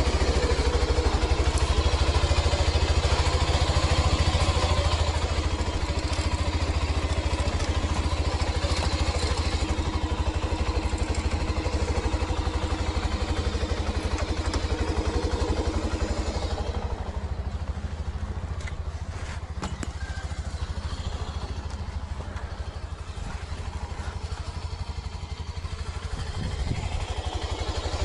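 Motorcycle engine running steadily at low speed, a dense low throb with hiss above it. From about two-thirds of the way through it grows quieter and the hiss fades, with a few sharp clicks.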